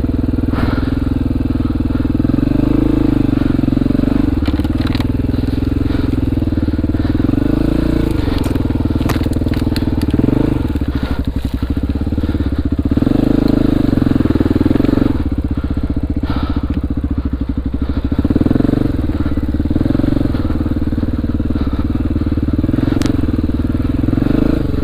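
2002 Honda XR400R's single-cylinder four-stroke engine running under load while riding off-road, revs rising and falling again and again, with a few sharp clicks and knocks along the way.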